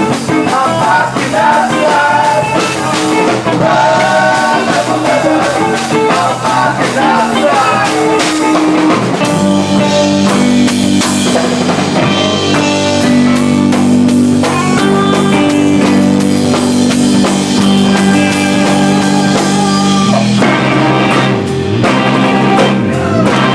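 Live rock band playing: a singer over guitar and drums, then about nine seconds in the voice drops out for a stretch of long held instrumental notes.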